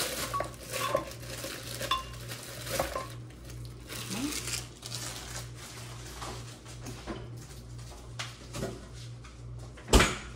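Frozen strawberries dropped one after another into a blender jar, clinking and knocking against it, with a louder knock near the end.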